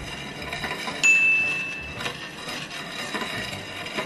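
Metal bench scraper rubbing along whipped-cream icing as the metal cake turntable turns. About a second in, a high ringing tone starts sharply and holds for about a second before stopping.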